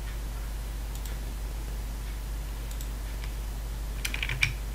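Computer keyboard and mouse clicks: a few isolated clicks, then a quick run of keystrokes about four seconds in as a new dimension value is typed. A steady low electrical hum runs underneath.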